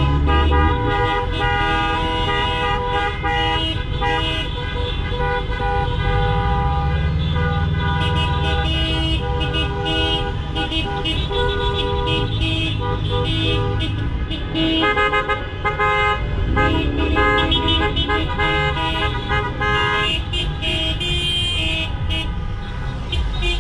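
Many car horns honking at once: long, overlapping blasts of different pitches that start and stop throughout, over the low rumble of idling engines.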